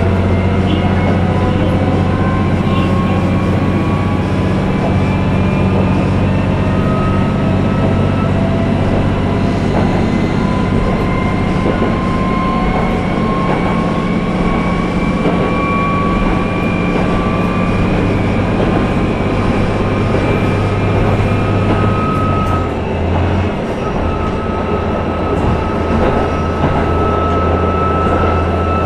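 Cabin running sound of a JR KiHa 11 diesel railcar: a steady low engine drone, with a thin whine that slowly rises in pitch as the car runs. The low drone dips briefly about three-quarters of the way through.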